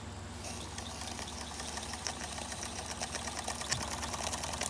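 Empire No. 31 toy steam engine running fast with its throttle opened, a rapid, even mechanical clatter that sets in about half a second in and grows a little louder.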